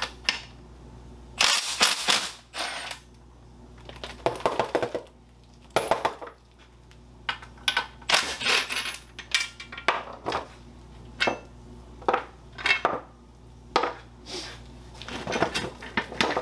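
Cordless impact driver run in repeated short bursts with pauses between, rattling as it backs out the bolts of the clasps that hold the outer rim to a wood-spoke wheel.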